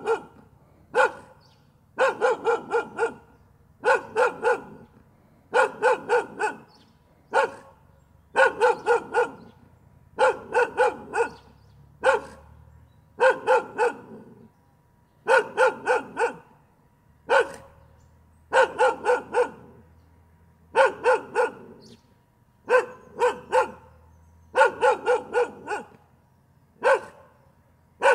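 A dog barking in quick volleys of three to five barks, a new volley about every two seconds.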